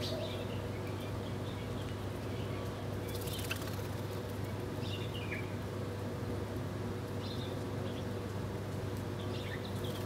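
House sparrows giving short, scattered chirps, a few at a time, over a steady low hum.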